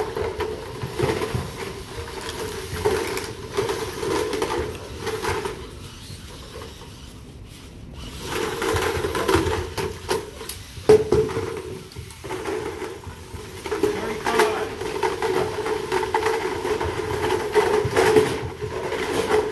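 Small electric motors of VEX competition robots whirring, starting and stopping in stretches of a few seconds as the robots drive and lift. Hollow plastic game cubes knock now and then, with the sharpest knock about eleven seconds in.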